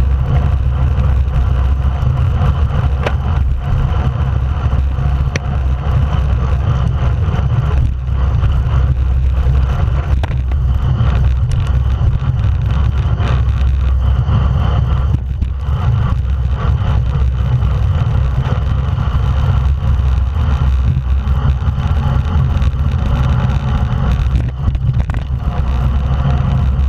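Wind buffeting the microphone of a camera mounted on a road bike moving at racing speed: a steady, loud low rumble with rushing noise over it.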